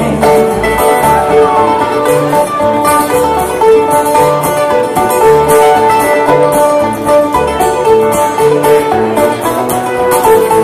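Live acoustic bluegrass band playing an instrumental break: plucked strings and acoustic guitar over a steady bass beat, with no singing.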